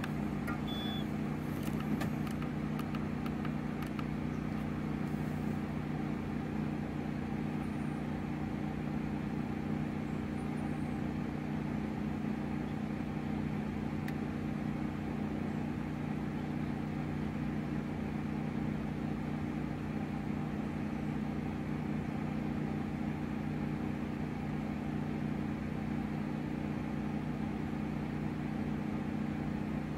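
Steady, unchanging low mechanical hum made of a few even tones, the kind of sound a vehicle engine makes at idle.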